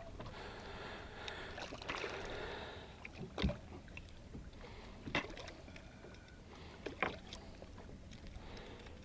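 Steady wash of water and wind around a small fishing boat, with three sharp knocks spaced about a second and a half apart in the second half.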